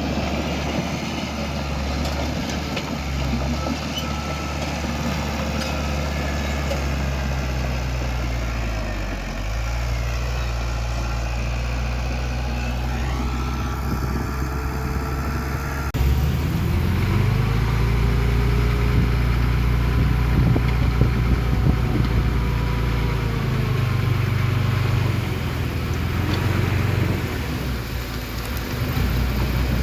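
Diesel engines of heavy earthmoving machinery running, a low steady engine note that dips briefly about nine seconds in. About halfway through the sound changes abruptly and runs a little louder, the engine note rising and falling as the machine works.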